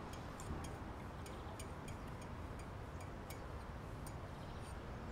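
Faint, irregular light clicks, two or three a second, of a small spoon against an ice cream cup, over a low steady room hum.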